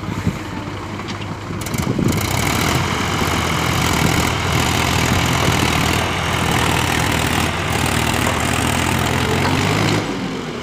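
Diesel engines of a farm tractor and a JCB backhoe loader working hard together to drag and push a loaded trolley out of deep mud. The engine noise rises about two seconds in, holds steady, and drops off near the end as the trolley comes free.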